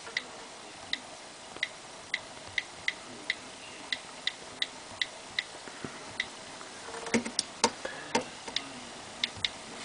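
iPad on-screen keyboard key clicks as a password is typed: a run of short, light ticks at about two a second, uneven. From about seven seconds in, louder fingertip taps on the glass screen join the clicks.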